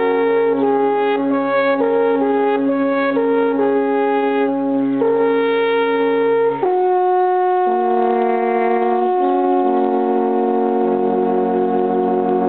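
Several alphorns playing together in harmony: a moving tune over a low held note, then, about six and a half seconds in, a change to a chord of long sustained notes.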